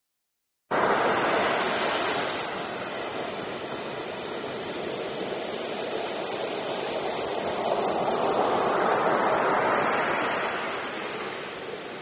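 Surf breaking on a beach: a steady rush of foaming water that starts abruptly just under a second in, eases, then swells again about eight seconds in as another wave breaks.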